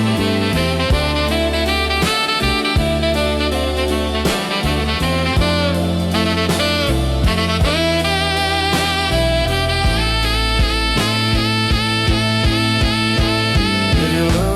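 Instrumental break in a slow dark-blues song: a saxophone solo over bass and drum kit.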